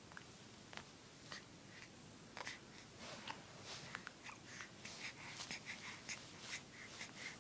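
A baby's faint breathing with small mouth clicks and smacks, coming thicker from about two and a half seconds in.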